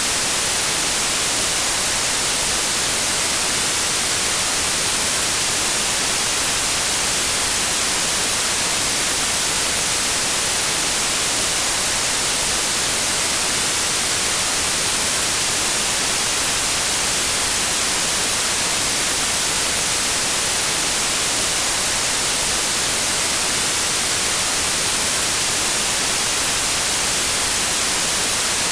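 Steady, unchanging white noise, an even hiss strongest in the high frequencies, played as a sleep sound.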